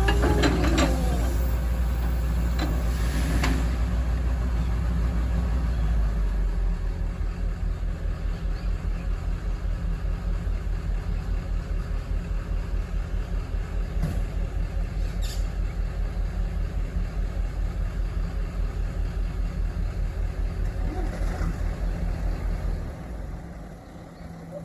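Excavator's diesel engine running at working speed, with a few metallic knocks and squeals in the first seconds. About six seconds in it drops to a lower, pulsing idle, and near the end its sound falls off sharply.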